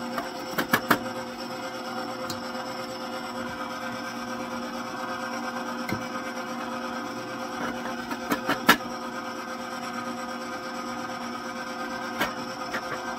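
KitchenAid stand mixer running steadily, its motor humming as the beater mixes cookie dough. A few sharp clicks come through about a second in, twice more a little past halfway, and once near the end.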